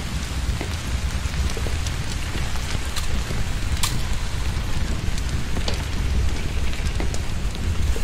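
Torrential rain falling steadily: an even hiss with scattered sharp drop ticks over a constant low rumble.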